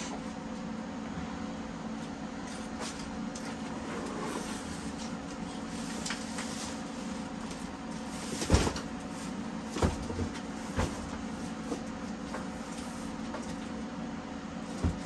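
Knocks and clunks of stored parts and clutter being shifted by hand, the loudest about eight and a half seconds in, with a few more around ten seconds and near the end, over a steady background hum.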